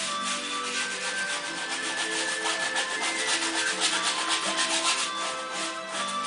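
A paintbrush scrubbing back and forth on a primed canvas in fast, even strokes, over soft background music with held notes.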